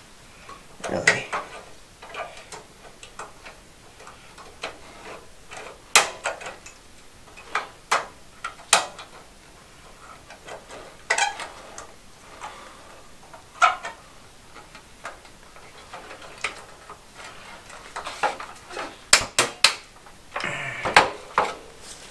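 Scattered sharp clicks and light knocks from fluorescent tubes being slid into and twisted in the sockets of a four-tube sheet-metal light fixture, some with a short metallic ring.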